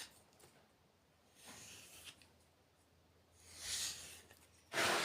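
A steel blade stroked along an old leather belt used as a strop, three soft swishes, the last and loudest near the end: stropping to give the cutting edge an even finish.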